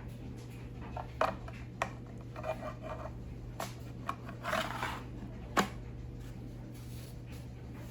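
Light handling noises: a few scattered clicks and knocks and brief rustles as a new mini chainsaw and its packaging are handled, over a steady low hum.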